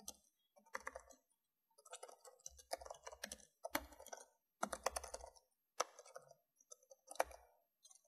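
Typing on a computer keyboard: uneven bursts of quick key clicks separated by short pauses, stopping near the end.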